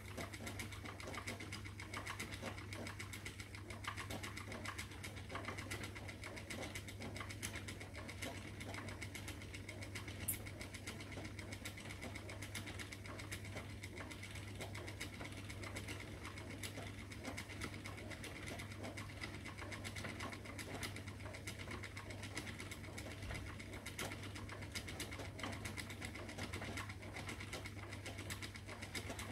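Spinning wheel running steadily while plying yarn: a continuous mechanical whirr made of fast, fine clicking over a steady low hum.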